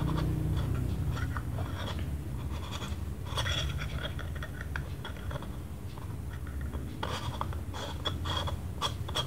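Fingers handling and turning a Canon EF 50mm f/1.8 STM lens: soft scratching and small clicks against its plastic barrel, coming in clusters, over a low steady hum.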